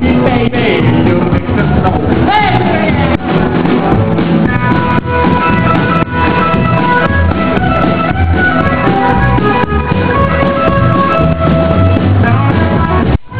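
Rockabilly band playing an instrumental passage of a song, with drums and held lead notes, that cuts out for a moment near the end.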